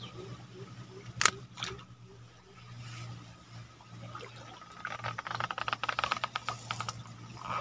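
Water splashing and pattering off a bamboo fishing lift net, in a dense run of quick ticks for about two seconds starting some five seconds in. Two sharp knocks come a little after a second in, and a steady low hum runs underneath.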